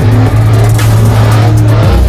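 Electronic music with deep sustained bass notes, mixed with the engines of off-road trucks revving hard as they spin donuts. The bass note changes near the end.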